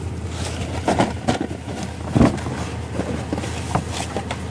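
Trash being handled in a dumpster: short rustles and knocks, the loudest about two seconds in, over a steady low hum.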